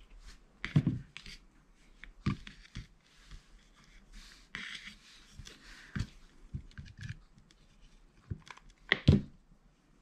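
Hands handling a small wooden craft piece, jute twine and a hot glue gun on a tabletop: scattered knocks and rustles, with two louder thumps, one about a second in and one near the end.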